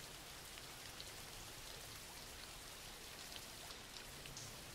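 Faint, steady rain falling, with a few soft drop ticks scattered through it.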